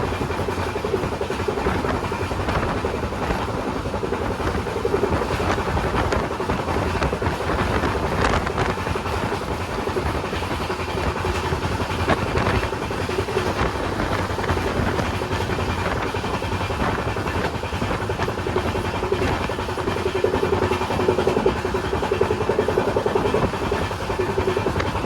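Indian Railways train running, a steady rumble with continuous rattling and clatter and a held hum.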